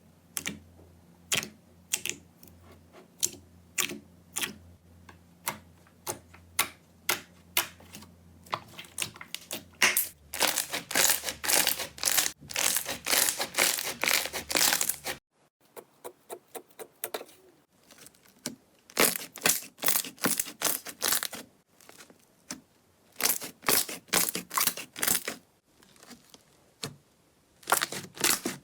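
Slime being squeezed and poked, giving rapid sharp clicks and crackling pops that come in dense runs. A faint low hum under the first half stops suddenly about halfway through.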